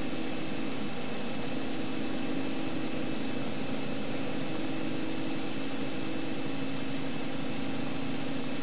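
Light aircraft cabin noise heard through the headset intercom: a steady engine drone with an even hiss, unchanging throughout.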